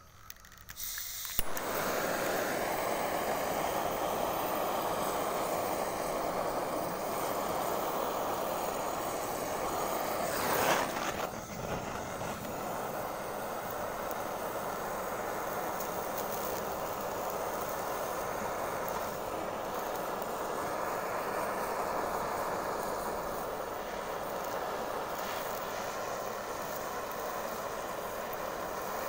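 Gas torch flame hissing steadily, starting with a click about a second in. A brief louder burst of hiss comes about ten seconds in.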